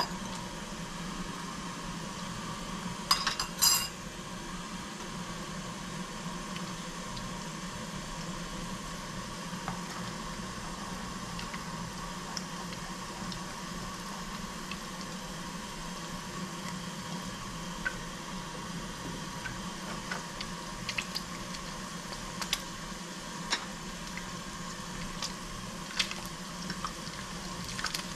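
Cookware and metal utensils clinking and tapping over a steady kitchen hum. There is a loud ringing clink about three seconds in and a run of light taps and ticks near the end.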